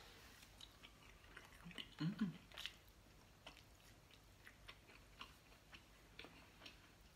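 Close-up chewing of a mouthful of food, with small wet mouth clicks scattered throughout and a brief louder low sound about two seconds in.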